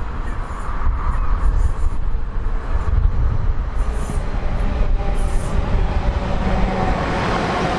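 Class 172 Turbostar diesel multiple unit approaching and running in along the platform: a steady low rumble of its underfloor diesel engines and wheels on the rails, growing louder in the second half as it draws level.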